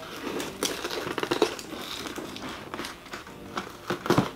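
Hands handling and opening a cardboard shipping box: irregular scraping, crinkling and clicks, with a louder knock near the end.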